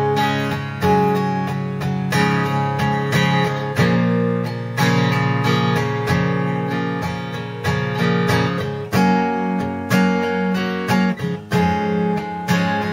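Guitar in an open tuning played with strummed chords that ring on, a fresh strum about every second.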